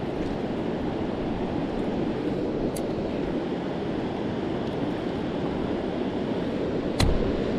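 Steady rushing of river current. A sharp knock with a low thud comes near the end.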